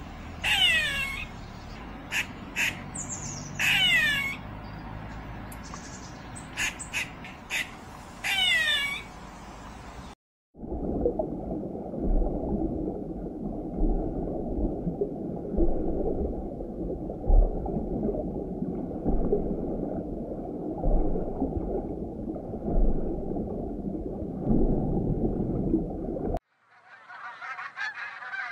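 A few short, high calls that sweep downward, over a light steady hiss. About ten seconds in the sound cuts to a dense, rushing underwater water noise with low thuds. Near the end it cuts again to mute swans calling.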